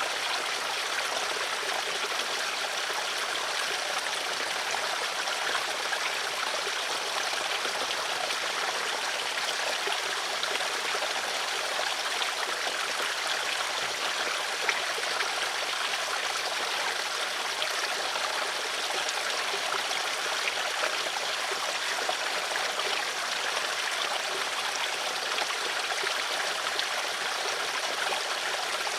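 Steady running water of a stream, a smooth, even rush with fine trickling detail and no change throughout.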